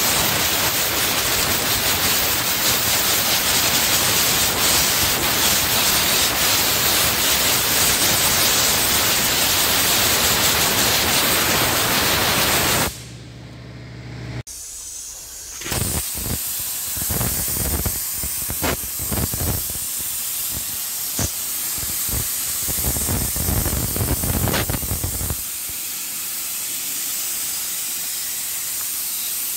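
Compressed air hissing hard and steadily from a blow gun for about 13 seconds, blasting loose, flaky coating off faux-foam beams. After a short break the air comes in uneven on-off surges with small clicks, then a steadier, softer hiss near the end.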